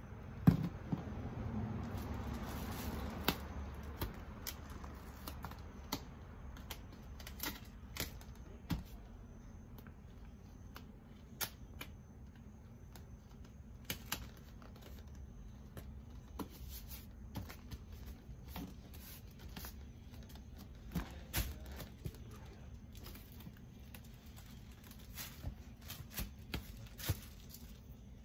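Household items being handled and packed into a box: rustling for the first few seconds, then scattered light clicks and knocks.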